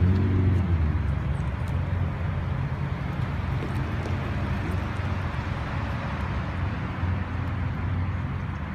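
A car engine running at low revs close by, a steady low drone over even street noise.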